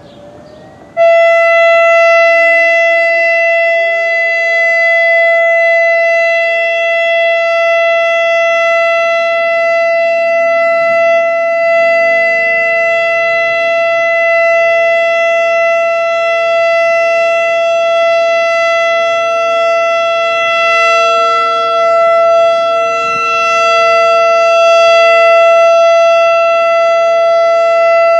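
American Signal Quadren Q-3200 electronic siren sounding its steady alert tone, switching on abruptly about a second in and holding one loud, high, steady pitch. A few seconds later a fainter second siren glides up underneath it to a lower steady tone.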